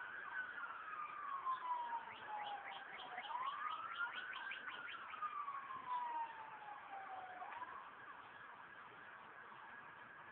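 Emergency vehicle siren wailing slowly, each cycle rising for about a second and falling for about three, fading out about eight seconds in.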